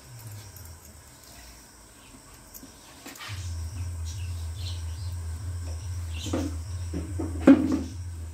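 Hand mixing thick idli batter in an aluminium pot: a low, rhythmically pulsing churning starts about three seconds in, with a sharp knock near the end. Crickets chirr faintly in the background.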